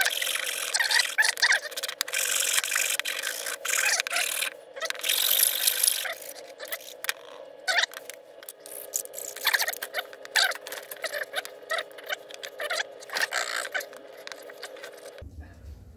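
Flat metal hand file rasping across a wooden part in quick repeated strokes. The strokes are densest for the first six seconds, then come in shorter scattered bursts until near the end.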